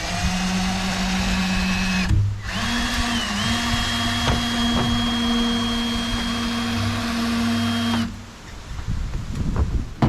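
Handheld drill driving a Warn portable cable winch in reverse, paying out cable under load as it lowers a wood chipper. The drill motor's steady whine runs about two seconds, stops briefly, then restarts a little higher in pitch and runs several more seconds before stopping. A few knocks follow near the end.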